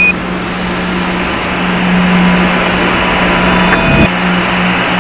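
Steady hiss and hum of an Apollo-era space-to-ground radio channel between transmissions. A short high Quindar beep sounds at the start, as the preceding transmission ends, and another comes near four seconds in, followed by a brief click.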